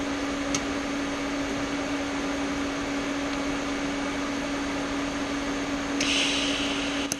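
Steady electrical hum and hiss of a TIG welding setup running, with a faint click about half a second in and a brighter hiss for about a second near the end.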